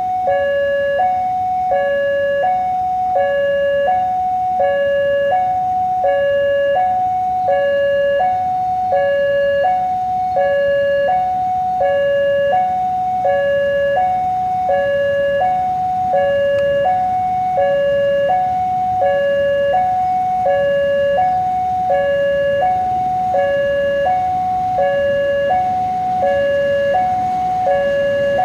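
Railway level-crossing warning alarm sounding, an electronic two-tone signal that alternates high and low, about one high-low pair a little over every second, warning of an approaching train.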